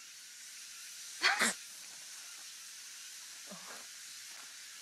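Steady background hiss, with a short, loud vocal sound in two quick parts about a second in, and a fainter brief vocal sound a couple of seconds later.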